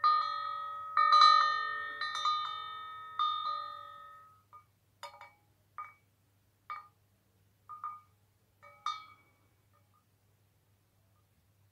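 Woodstock Chimes Dharma Cowbell, a slotted metal cylinder bell, struck about six times by its hanging clapper, giving a ringing cowbell sound that fades over a few seconds. Then about five short clanks a second apart, cut off quickly because a hand is holding the bell and damping it.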